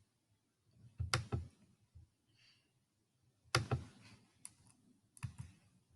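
A few faint, sharp clicks and taps in small clusters: a pair about a second in, a group a little past the middle, and another near the end.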